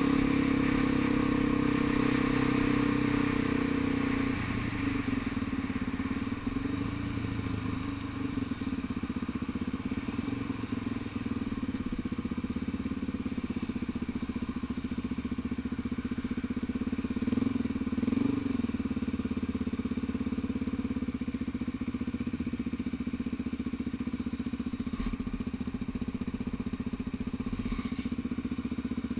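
Motorcycle engine heard from the rider's position. It runs steadily at cruising speed with wind rush, then drops off about four seconds in as the bike slows. There is a brief rev around halfway, and it then runs low and steady at walking pace in traffic.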